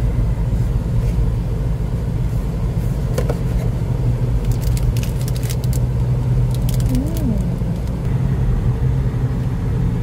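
Steady low rumble of a car's cabin with the engine running, and a few seconds in a short spell of crinkling as a plastic pastry wrapper is handled and pulled from its box.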